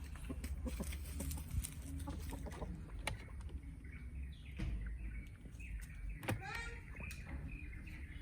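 Backyard chickens clucking as they feed, with short calls coming in about halfway through and a quick run of them later on, over a low steady rumble and small scattered clicks.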